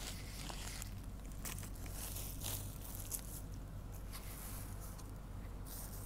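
Blue sterile drape from a dressing set being unfolded and handled by hand, rustling and crinkling in short irregular crackles.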